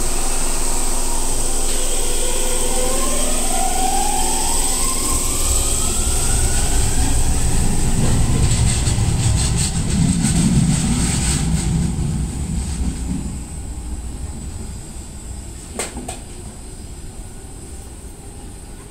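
Enshu Railway 2000-series electric train pulling away from a station: its traction motors give a whine that rises steadily in pitch as it accelerates, then the wheels knock over rail joints and the sound fades as the train leaves. A single sharp click comes near the end.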